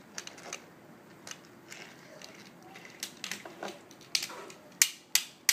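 Toy cars clicking and clattering as they are handled, then a run of sharp, evenly spaced clicks about three a second near the end, like a toy's ratchet mechanism.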